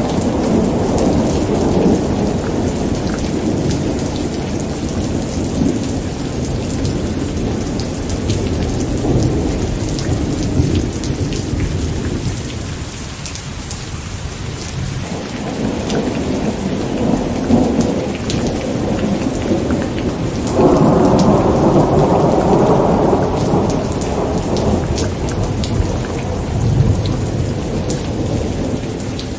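Thunderstorm: steady rain with continuous rolling thunder. The thunder eases for a few seconds near the middle, then a louder peal breaks in suddenly about two-thirds of the way through.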